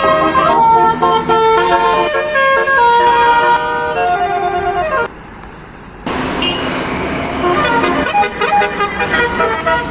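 Basuri 'telolet' multi-tone bus horn playing a tune of steady notes that step up and down, several notes sounding together. It cuts off suddenly about five seconds in; after a second's lull a noisier stretch follows, with more horn notes over road noise.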